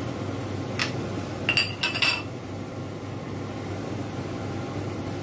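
A few sharp metallic clinks with a brief ring, between about one and two seconds in, from a stainless steel wok lid knocking against the wok, over a steady low hum.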